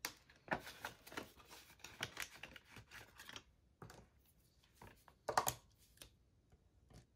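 Paper banknotes and a clear plastic binder envelope being handled: faint rustling and soft clicks for the first few seconds, then a short burst of louder clicks a little past five seconds in.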